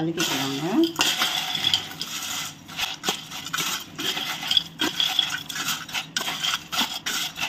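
Slotted stainless steel spoon stirring crisp fried boondi and peanuts in a stainless steel bowl: a continuous crunchy rattle with many quick clicks of spoon and grains against the steel. The crispness of the fried mixture shows in the sound.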